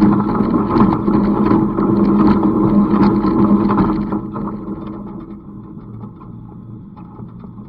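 Tractor engine and IH 47 wire baler running while baling hay: a steady engine drone with rapid clattering and knocking from the machinery. About four seconds in the sound drops sharply, leaving a quieter, duller engine sound.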